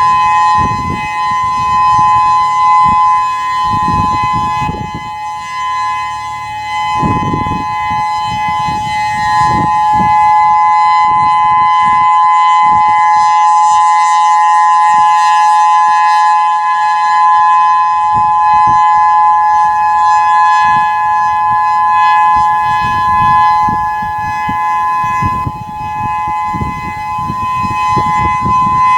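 Whelen 3016 electronic outdoor warning siren sounding a steady alert tone: two close pitches held together without rising or falling. The tone swells and fades in loudness as the rotating speaker head turns.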